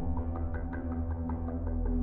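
Ambient background music: low notes held steady under a quick, even run of light plucked notes.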